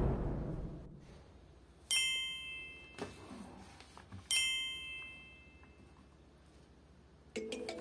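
Two bright bell-like ding sound effects about two and a half seconds apart, each ringing out for about a second, with a short click between them. They are the kind of sounds that go with an on-screen subscribe-button animation. Background music begins near the end.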